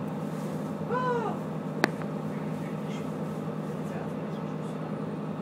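Steady running hum of a passenger train heard from inside the carriage. About a second in there is a short pitched sound that rises and falls, and just before two seconds a single sharp click.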